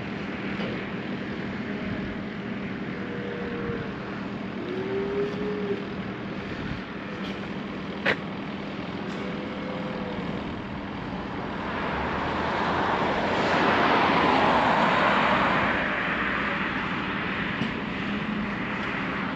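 A road vehicle goes by, its noise swelling and fading over about four seconds in the second half, over a steady low outdoor hum, with one sharp click about eight seconds in.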